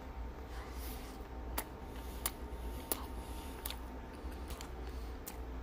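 Close-miked chewing of a bite of double cheeseburger: soft squishy mouth sounds with several sharp wet clicks, over a steady low hum.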